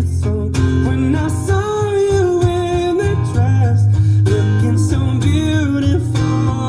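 Song music with acoustic guitar and a melodic line, played loud and steady on the standard car audio system of a 2021 Honda City Hatchback.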